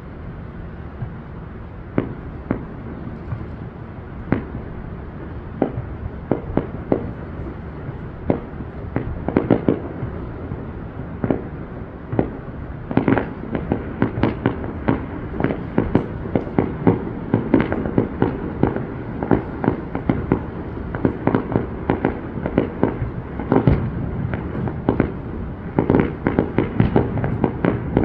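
Fireworks display: sharp bangs, scattered at first, then coming thicker and faster from about halfway in, until they overlap in a dense run.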